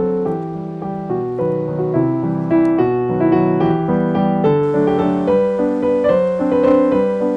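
Background piano music: a light melody over chords, notes changing every fraction of a second.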